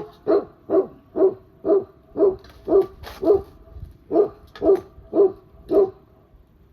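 A dog barking repeatedly, about a dozen barks at roughly two a second with a brief pause midway.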